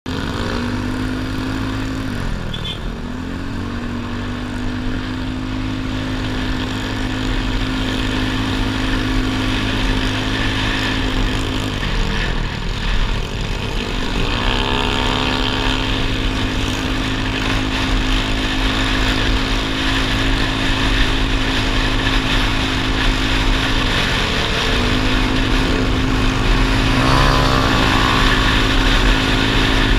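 Motorcycle engine running at cruising speed, its note dipping and climbing back a few times as the throttle changes. Wind rumbles on the microphone at road speed.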